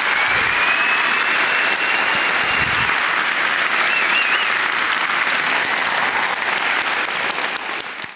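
Audience applauding steadily, easing off near the end and then cutting off suddenly.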